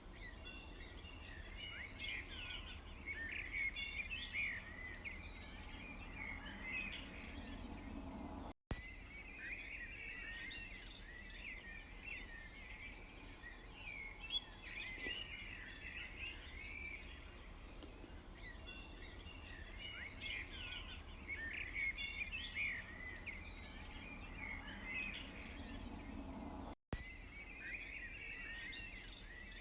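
Songbirds chirping and twittering in dense overlapping calls over a steady low background rumble. The sound cuts out for an instant twice, about a third of the way in and near the end.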